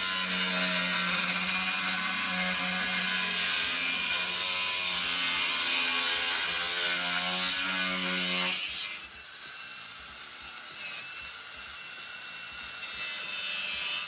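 Cordless angle grinder with a cut-off disc cutting through a strip of scrap steel: a steady motor whine over a harsh high hiss, which stops about eight and a half seconds in. A short second burst of cutting comes near the end.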